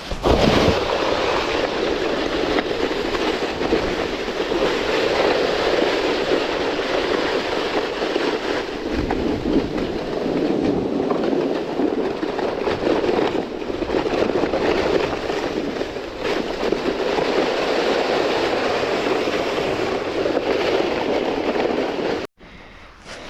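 Plastic sled sliding fast down a snowy hill: a loud, continuous rushing scrape of the sled on snow that starts suddenly and cuts off abruptly near the end.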